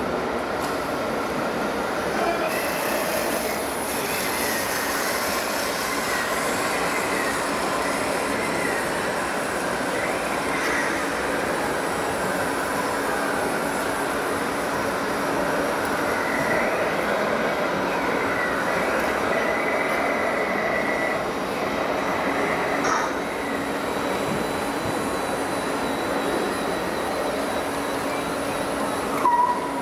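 Steady mechanical whirring with wavering high whines from a radio-controlled model tipping trailer's drive as it slowly raises its load, over a constant hall hum. There is one sharp click about three-quarters of the way through.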